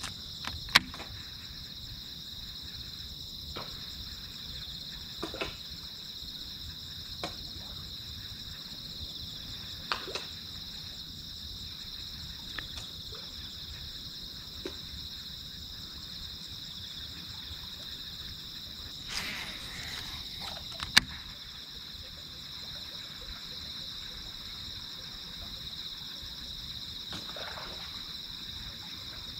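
Japanese catfish feeding at the water surface: a series of short, sharp pops and splashes every few seconds, the loudest about a second in and again about two-thirds of the way through. Steady insect chirring runs underneath.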